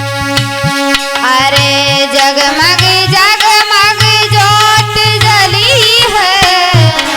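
Instrumental interlude of a Hindi devotional aarti song: a steady tabla/dholak-style hand-drum rhythm with deep bass strokes, joined about a second in by an ornamented lead melody with sliding, bending notes that fades out shortly before the end.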